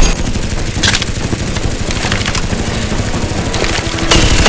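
Foam-dart blasters firing in a fast, rattling volley that gets louder about four seconds in.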